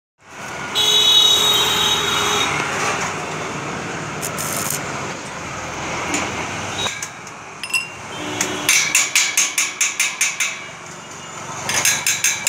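Hammer tapping steel tubing into a welded balcony grille frame: a quick run of light metal-on-metal taps, about five a second, then a second short run near the end. Near the start there is a high metallic ringing.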